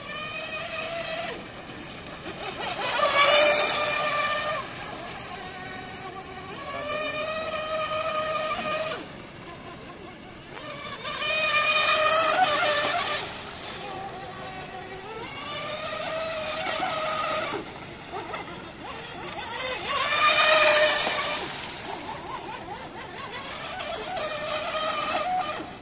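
Electric RC racing boat's Tenshock brushless motor whining at full speed, a steady high whine that grows loud three times as the boat passes close and fades as it runs off across the water.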